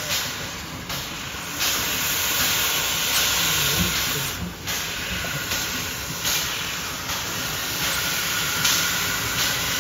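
Steam locomotive hissing steadily as steam jets from its open cylinder drain cocks, easing briefly about four and a half seconds in.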